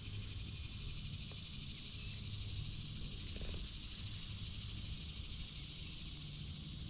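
A steady, high-pitched chorus of cicadas buzzing, with a low steady hum beneath it.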